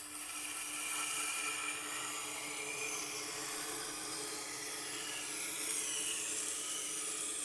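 Steel knife blade grinding against a coarse, powered sharpening wheel during reprofiling: a steady rasping hiss over the low hum of the motor. The grinding starts suddenly as the blade meets the wheel.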